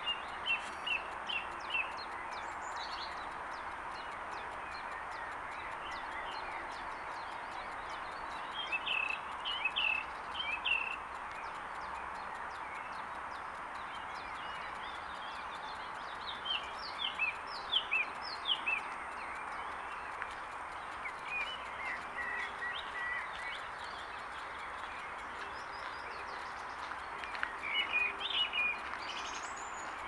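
Songbirds singing in about five short phrases of quick high chirps, a few seconds apart, over a steady background hiss.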